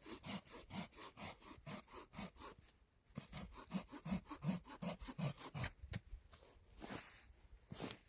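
Hand saw cutting wood with quick back-and-forth strokes, about four a second, in two runs with a short break between, then two slower strokes near the end.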